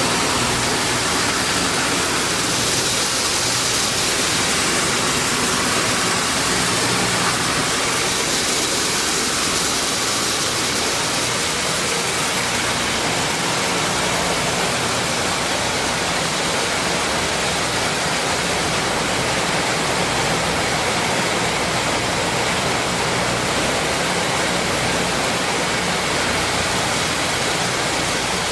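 Maize milling machine running steadily: an even rushing noise with a low motor hum beneath it.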